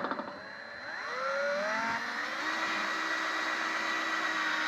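Electric drill driving a screw into the wall of a plastic 5-gallon bucket. Its whine rises in pitch over the first couple of seconds, then holds steady.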